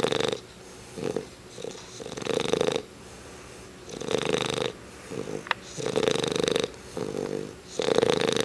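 English bulldog snoring in its sleep: a loud snore about every two seconds, with smaller snorts between them.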